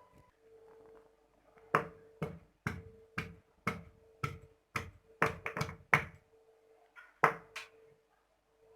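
A kitchen utensil striking sharply and repeatedly, about two knocks a second, as in crushing or chopping ingredients, with a pause and then two more knocks near the end.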